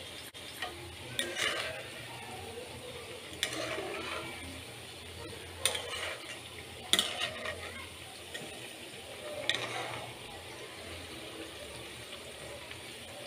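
Masala vadas deep-frying in hot oil with a steady sizzle. A metal ladle scrapes and knocks against the pan about five times as the fritters are turned.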